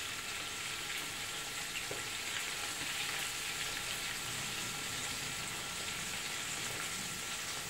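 Small strips of pejerrey fillet frying in oil in a pan, a steady sizzle.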